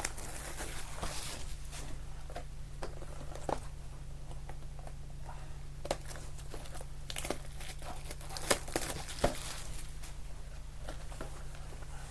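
Plastic wrapping on sealed trading-card boxes crinkling and tearing as it is opened by hand, with a couple of sharper clicks about eight and nine seconds in. A faint steady hum runs underneath.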